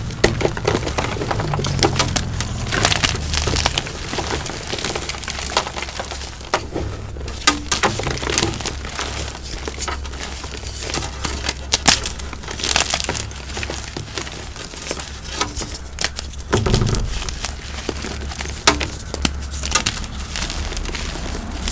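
Pasted gym chalk blocks, coated in dried cornstarch paste, being crushed by hand: dense, irregular crunching and crackling with many sharp cracks throughout.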